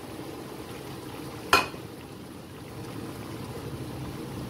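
Pan of capcay vegetables simmering in broth with a steady low bubbling, while the vegetables are stirred with a spatula. One sharp clack against the pan about a second and a half in.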